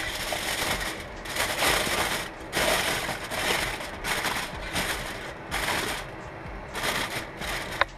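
Aluminium foil crinkling in a series of bursts as hands press and fold a sheet of it over the rim of a wok, with one sharp click near the end.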